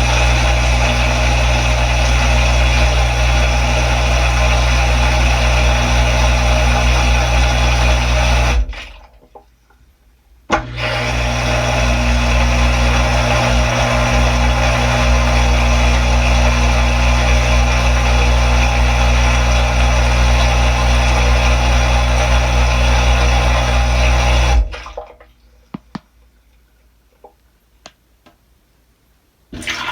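Samsung dishwasher's pump running loud and steady with water spraying and churning around the tub, heard from inside through plastic bags during the machine's test mode. It cuts off about nine seconds in, starts again with a click two seconds later, and stops again near the end, leaving a few faint ticks.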